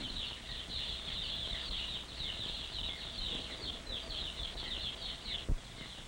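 Many day-old chicks peeping together: a dense, continuous stream of short, high, falling peeps that thins out near the end, followed by a single click.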